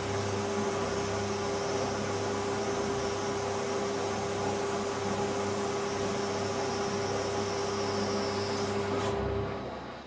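Philco Ford WE952 front-loading washing machine turning its drum of laundry during a regular 60 °C wash: a steady motor hum with a held mid-pitched whine and a hiss. It stops about nine seconds in.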